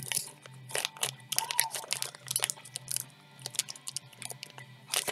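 Crinkling and irregular sharp clicks of something being handled close to the microphone, over a low steady hum.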